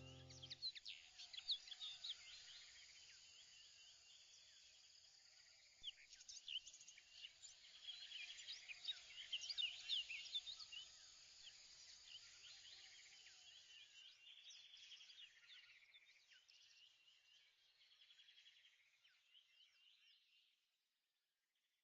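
Faint birdsong: many short chirps over a light hiss, busiest about ten seconds in and fading out near the end.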